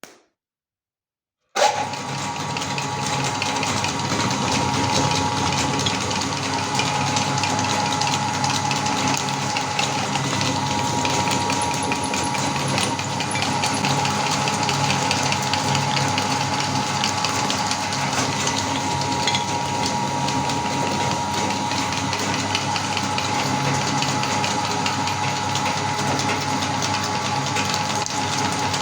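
Electric meat grinder switching on suddenly about a second and a half in and running steadily, its motor holding a constant whine, with dense crackling from the food being ground.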